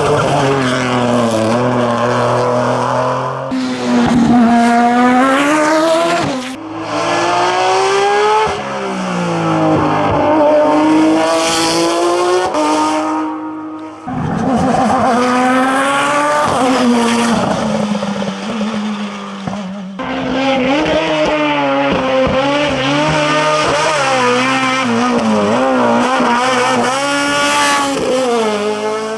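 Hillclimb race car engines at high revs, pitch climbing under acceleration and dropping on gear changes and lift-off, with a hard-edged, raspy note. Several cars are heard one after another, with abrupt changes of sound a few times.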